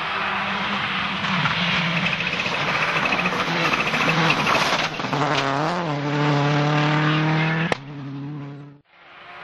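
Rally car's engine running hard at high revs as it passes close. The pitch drops and climbs back twice in the middle with lifts and gear changes, then a single sharp crack comes near the end and the engine sound falls away.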